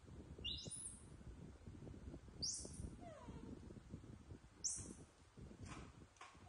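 Young macaques calling: short high-pitched squeaks about every two seconds and a soft falling call about three seconds in, over low rustling from food being handled.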